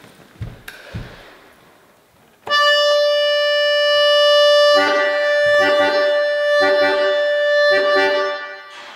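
Small button accordion: after a couple of soft knocks, a long held note starts about two and a half seconds in. It gives way to rhythmic chords with bass notes, about two a second, which stop shortly before the end.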